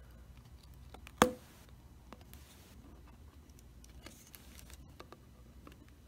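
Faint small taps and scrapes of a small screwdriver on the phone's internal parts as a flex-cable connector is pressed down. One sharp click about a second in is the loudest sound.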